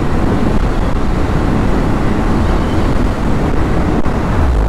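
Wind rushing over the microphone of a motorcycle at high speed, with a two-stroke single-cylinder engine (Yamaha RX135) running hard underneath, steady throughout.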